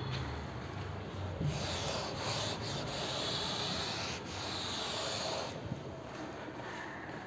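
Chalk being wiped off a blackboard, a steady rubbing scrape that starts about a second and a half in and stops about five and a half seconds in.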